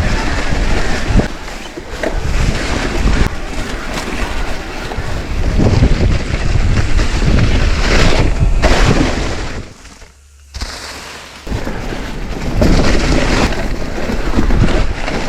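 Wind noise buffeting the microphone, with rumble and irregular knocks from a mountain bike riding over rough ground. About ten seconds in the noise briefly drops away, then returns.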